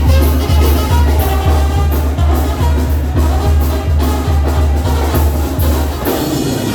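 Loud dance music played over a sound system, with a heavy bass beat about twice a second. The bass drops out briefly near the end.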